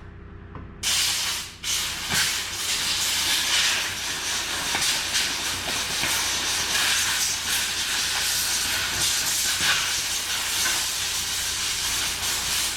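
Compressed air blasting from an air nozzle, blowing oily dirt off a chainsaw's parts: a loud hiss that starts about a second in, breaks off briefly, then runs on with small surges.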